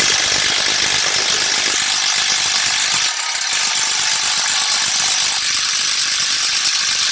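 Ryobi cordless impact driver running under load, its hammer mechanism giving a rapid continuous rattle of impacts as it drives a screw, with a brief dip about three seconds in.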